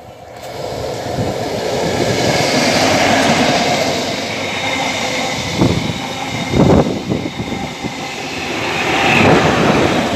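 A First Great Western HST (InterCity 125) running through the station at speed: a rushing roll of wheels on rail that builds up over the first couple of seconds, with a few heavy thumps from the wheels around the middle. It grows louder again near the end as the rear Class 43 diesel power car goes by.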